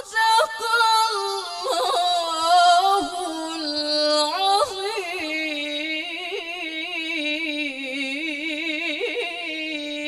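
A woman reciting the Qur'an in the melodic tilawah style, with long held notes ornamented by quick wavering. The voice climbs higher over the first two seconds or so, drops back lower about three seconds in, then carries a long wavering phrase.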